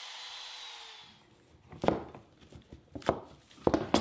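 Compact router spinning down, its whine dropping slightly in pitch and dying away about a second in. Then a few sharp knocks and clacks as workpieces and clamps are handled on a wooden workbench.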